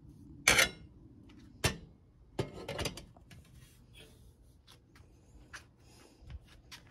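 Metal parts of a Radius No.119 pressure stove being fitted together by hand: a sharp metal clank about half a second in, another about a second later, then a short run of clinks and lighter ticks.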